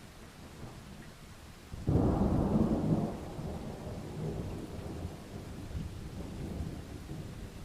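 Thunderclap during steady rain: a sudden loud crack about two seconds in, followed by a low rumble that slowly dies away.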